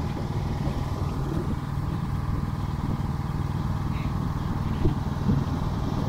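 An engine running steadily at an even speed.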